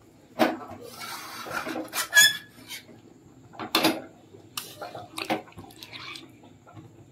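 Metal spatula scraping and knocking against a kadhai while stirring chicken curry in thin, watery gravy, with the liquid sloshing. There are four or five sharp clanks spread through the stirring.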